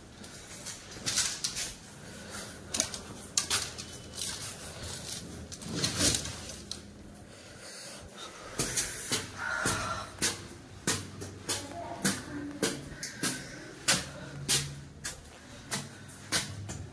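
A run of irregular sharp clicks and knocks from doors and things being handled in a small room, coming several times a second at times.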